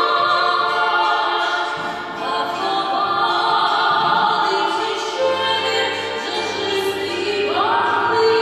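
A woman singing a slow hymn into a microphone in a full, operatic voice, holding long notes, with a plucked bandura accompanying her, amplified through a PA. Near the end her voice rises to a higher held note.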